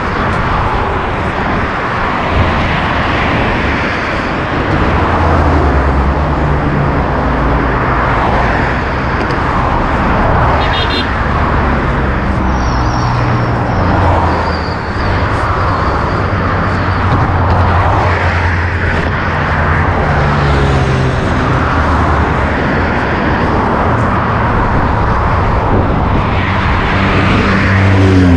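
Road vehicle noise: an engine running steadily, its low hum shifting in pitch, under a constant rush of road and tyre noise.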